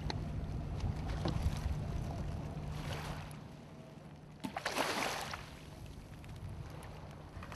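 River water lapping and washing on a shingle shore, with wind on the microphone and a steady low hum underneath; a wave washes in about three seconds in and a louder one about five seconds in.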